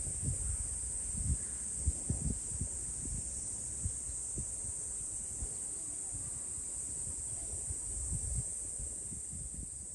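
Steady high-pitched drone of insects, shrilling without a break, over irregular low knocks and bumps.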